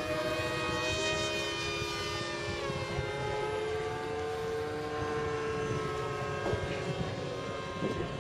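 Radio-controlled model plane's motor and propeller whining as it flies high overhead: a steady drone of several tones at once. The pitch drifts slowly and slides down a little about three seconds in.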